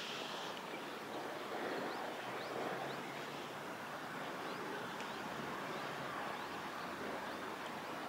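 Steady outdoor riverside ambience: a continuous rushing noise of wind and flowing water, with faint short high chirps now and then.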